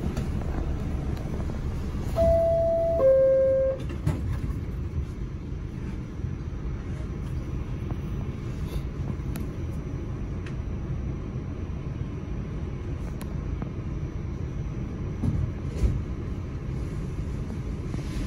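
Two-note descending door chime of an R46 subway car, a higher tone then a lower one about two seconds in, over the steady low rumble of the car standing at the platform. A few faint knocks come near the end.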